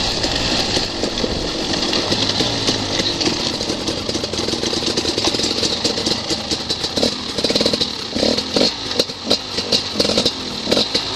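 Enduro dirt bike engines running: first a bike riding along a gravel track, then, after a cut partway through, several stopped bikes idling together, with short pulses in the engine sound over the last few seconds.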